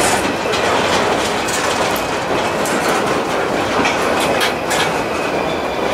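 Empty intermodal flatcars of a freight train rolling past close by: a steady rumble with wheels clicking irregularly over rail joints, and a faint thin high wheel squeal.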